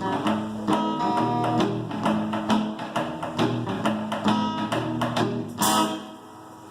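Live acoustic band music: a strummed acoustic guitar playing rhythmic chords with cajon and cymbal percussion. A bright crash about five and a half seconds in, after which the music drops quieter.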